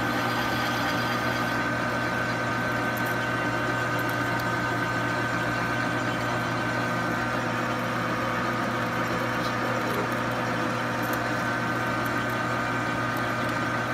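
Metal lathe running steadily at about 220 RPM, turning an unbalanced bronze workpiece while a boring bar works in its bore: an even machine hum with a few steady tones and no change in level.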